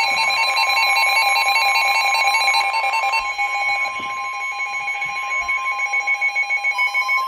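Emergency Alert System alert tone: a loud electronic two-tone alarm, one tone steady and the other pulsing rapidly. Near the end a tone begins gliding upward in pitch.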